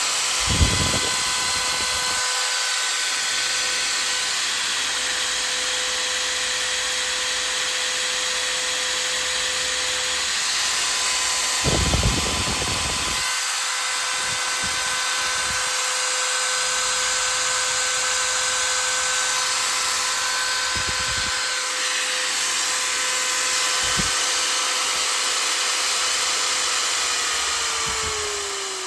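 INCO 750W electric impact drill running at a steady speed with an even high whine, then released near the end, its motor winding down in pitch. A couple of short knocks sound, one near the start and one about twelve seconds in.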